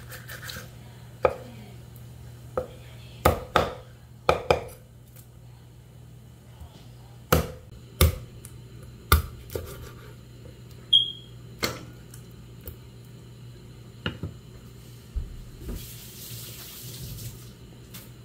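A heavy kitchen knife chopping raw poultry on a thick wooden chopping board: about a dozen sharp knocks at irregular intervals, some in quick pairs, over a steady low hum.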